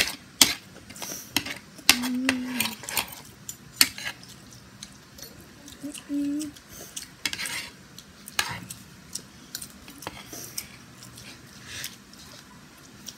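Metal spoon and fork clinking and scraping against a plate of fried rice in irregular taps. There are two brief low hums, about two and about six seconds in.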